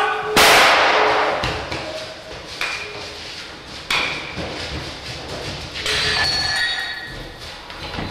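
A sudden loud bang with a long trailing decay, then three fainter knocks about a second apart, and near the end a short ringing scrape.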